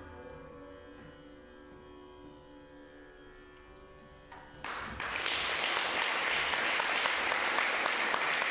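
A sitar's strings ring out after the last stroke and slowly fade away at the end of the piece. A little over halfway through, audience applause breaks out suddenly and keeps going, louder than the fading sitar.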